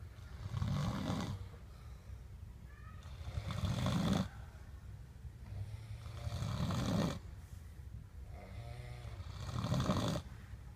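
A sleeping person snoring: four rasping snores about three seconds apart, each cutting off sharply, with a softer, pitched sound on the breath between them.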